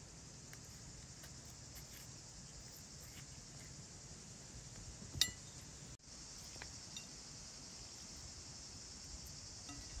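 Steady high-pitched insect chirring in the background, with one sharp, ringing clink of a metal spoon against a dish about five seconds in and a few faint soft taps later on.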